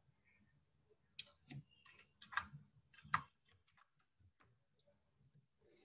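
Faint clicking of computer keyboard keys: a quick run of clicks starting about a second in and lasting about two seconds, then a few scattered fainter ones.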